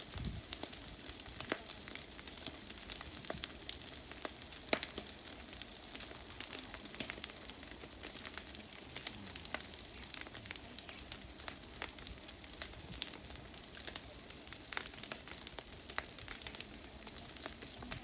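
Wildfire burning: a steady hiss with many sharp, irregular crackles and pops.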